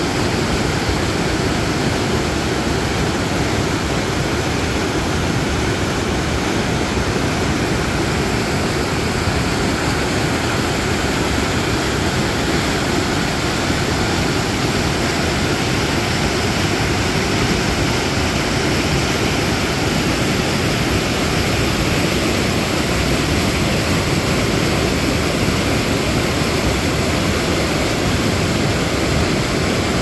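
Water pouring over a river weir and churning through white-water rapids below: a loud, steady rush that never changes, heaviest in its low rumble.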